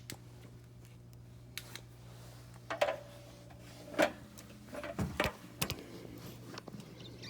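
Scattered light clicks and knocks from something being handled, over a steady low hum.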